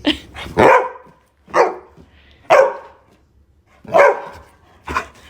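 A dog barking: about five short barks, roughly a second apart.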